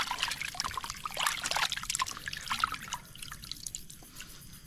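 Water trickling and dripping with small, irregular splashes as pieces of parboiled pork head meat are rinsed by hand. It thins out over the last second or two.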